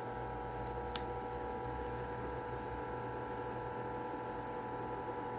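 Steady electrical hum, with two or three faint clicks about one and two seconds in.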